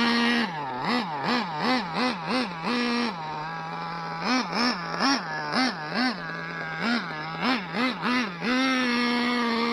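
Kyosho Inferno ST nitro RC buggy's Dynamite .26 two-stroke glow engine with a Dynamite pipe, running at high revs, then revved and let back down over and over in quick blips, about two a second, and held high and steady again near the end.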